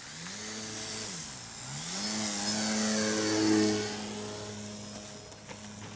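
Homemade radio-controlled model plane flying past, its small electric motor and propeller giving a steady whine. The motor speed dips about a second in, then climbs and holds. The sound is loudest about three and a half seconds in, as the plane passes closest.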